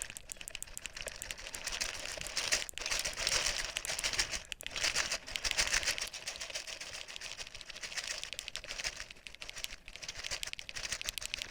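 Paperclips rattling in a small box, shaken to imitate a tiny metal toy car: a fast, dense clatter that swells and eases as the car speeds up and slows down, with brief pauses.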